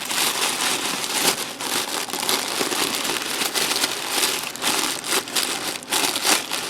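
Tissue paper rustling and crinkling continuously as it is pulled away from a handmade object, with many short crackles.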